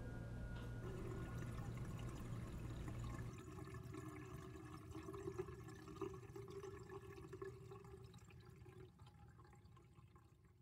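Water running and draining from a sink, with a few drips, fading out near the end.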